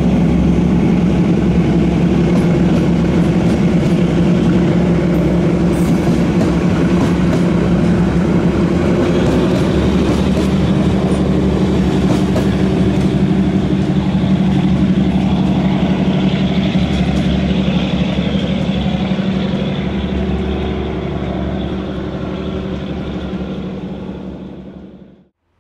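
Two coupled MÁV 418-class (M47) diesel locomotives running with a steady low engine drone. It fades somewhat near the end and then cuts off suddenly.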